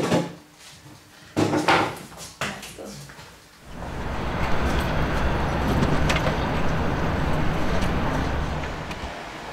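A few sharp knocks and clatters of things being handled and set down on a counter, then a steady city-street din with a low rumble that sets in about four seconds in.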